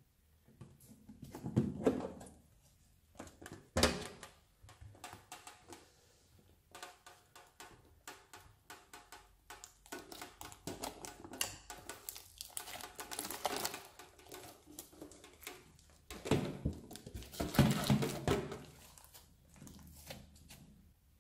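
Fingers pressing and kneading crunchy foam-bead slime, a dense run of small crackles and pops with louder wet squelches near the start and again about sixteen to eighteen seconds in. A single sharp knock about four seconds in.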